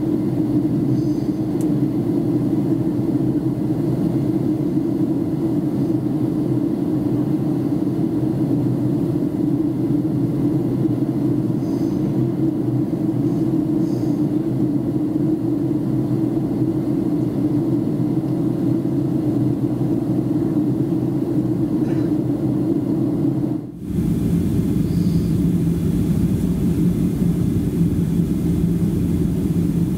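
Steady in-flight cabin drone of a Boeing 737-300: its CFM56-3 engines and the airflow over the fuselage. About 24 s in the sound briefly drops out, then returns as a similar steady drone with a lower hum in it.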